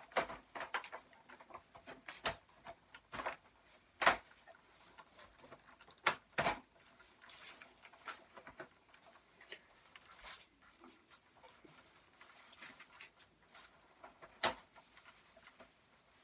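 Hard plastic parts of a life-size animatronic skeleton pirate prop being handled and fitted together: scattered knocks and clicks at irregular intervals, a few sharper ones, with light rustling between.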